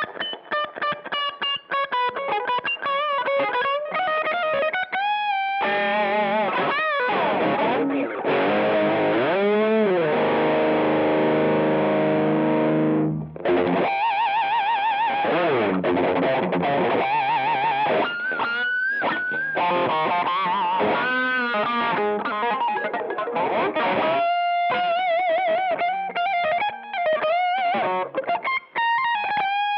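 Electric guitar played through a Tate FX Hot Coals treble booster, a Dallas Rangemaster-style pedal, with a driven, distorted tone. Lead lines with string bends and vibrato, then a held chord that rings for several seconds from about six seconds in and is cut off sharply about thirteen seconds in, followed by more bent lead notes.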